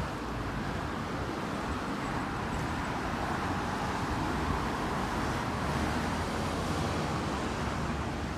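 Street traffic noise: cars running and passing on the road, swelling a little in the middle as a vehicle goes by.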